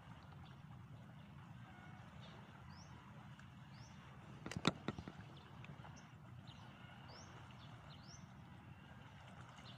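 Quiet open-air lakeside ambience: a steady low background rumble with faint, short, high rising bird chirps scattered throughout. About halfway through comes a quick cluster of sharp clicks, the loudest sound.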